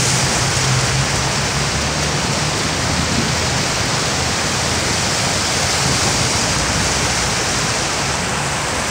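Floodwater rushing over a street, a steady roar of moving water, with cars driving through it, their tyres splashing and engines giving a low rumble underneath.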